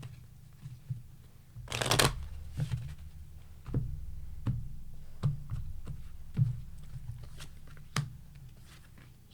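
Tarot cards being shuffled, with one rustling burst about two seconds in, followed by a series of light taps about a second apart as cards are dealt onto a table.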